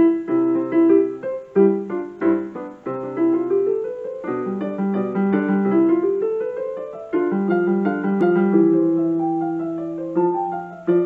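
Outro music played on piano: a melody moving over held lower notes and chords.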